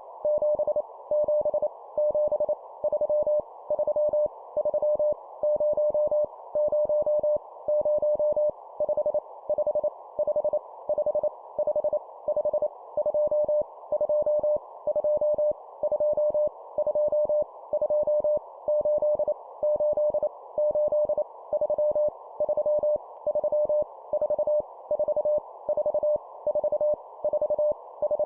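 Morse code (CW) sent at 25 words per minute as a single steady mid-pitched tone keyed on and off in dots and dashes, spelling out random numbers with each group repeated three times, over a steady band of hiss.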